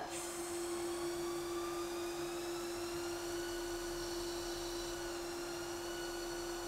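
Haas ST10 CNC lathe running a parting-off cut with the cutoff tool under flood coolant: a steady machine whine over the hiss of the coolant spray, with fainter higher tones rising slightly about two seconds in.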